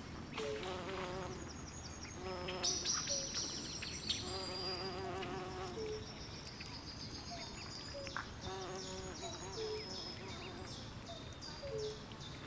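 Night swamp chorus: insects chirping in quick high pulsed trains throughout, with short repeated lower calls and wavering trills from frogs.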